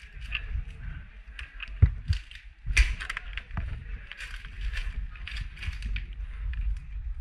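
Close handling and movement noise: rustling, low rumble and irregular clicking from gear moving against a body-worn microphone, with two sharp knocks about two and three seconds in, the second the louder.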